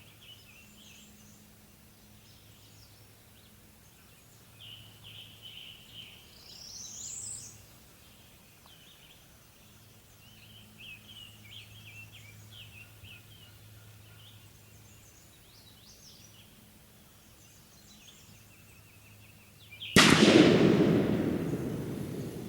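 Birds chirping faintly over a low steady hum, then about twenty seconds in a single loud gunshot whose report trails off over about two seconds: a hunter shooting at a turkey.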